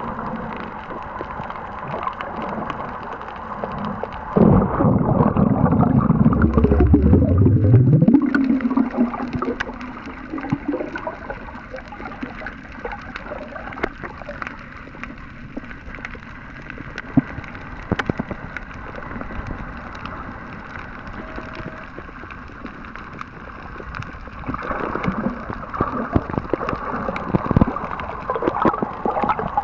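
Underwater sound through a camera housing: a steady muffled water hiss with scattered sharp clicks. A loud gurgling rush of bubbles runs from about four to eight seconds in, and a weaker gurgling spell comes near the end.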